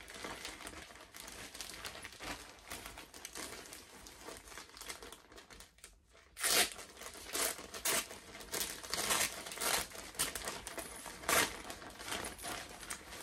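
Thin plastic packaging bag crinkling and rustling as it is handled and opened, with louder, sharper crackles from about halfway in.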